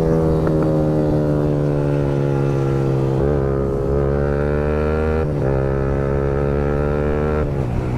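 Yamaha MT-15's single-cylinder engine running steadily through an Akrapovic aftermarket exhaust, its pitch holding even with slight dips about three and five seconds in.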